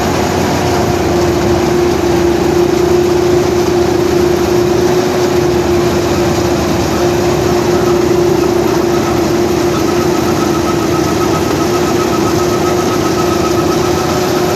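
Vishal 435 combine harvester running steadily while cutting paddy, a loud even machine drone with one strong steady hum throughout.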